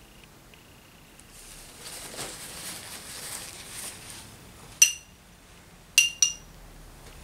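Rustling of a paper towel being handled, then three sharp ringing clinks of a hard object knocked against a dish or jar, the last two close together.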